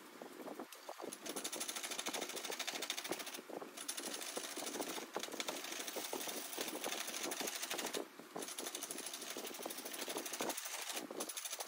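Roughing gouge cutting dry wood on a spring pole lathe: a rapid, continuous chattering scrape of the tool biting the spinning blank. It breaks off briefly three times, about three and a half, eight and eleven seconds in.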